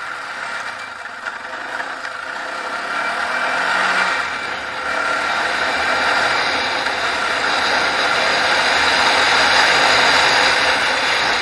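ATV engine running hard at open throttle. The engine and rushing noise grow louder over the first few seconds, then hold steady.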